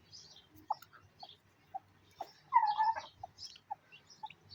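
Backyard birds calling: short notes repeat about twice a second under scattered high chirps, and one louder, curved call comes a little past halfway.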